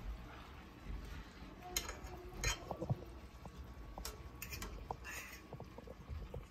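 Metal fork clinking against a frying pan as vegetables are turned and fried fish moved into it: a handful of sharp clicks spread over the few seconds.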